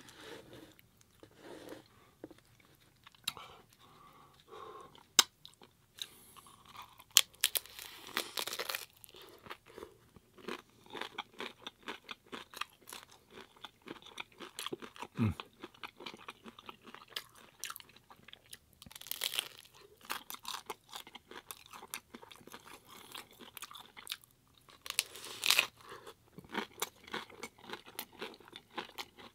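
Close-up eating of hard corn taco shells: steady chewing with many small crunches, and several louder, sharper crunches from fresh bites spread through.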